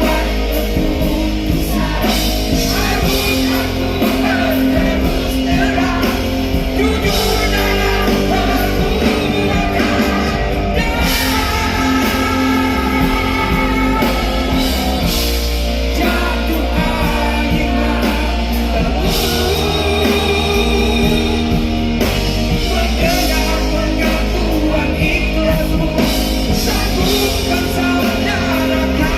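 Live rock band playing a song, with electric guitar, bass and drums under a lead vocal melody.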